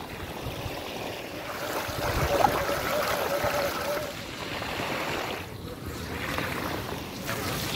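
Mountain bike tyres rolling through waterlogged grass and puddles, splashing water, with wind noise on the microphone. A thin steady whine is heard from about two to four seconds in.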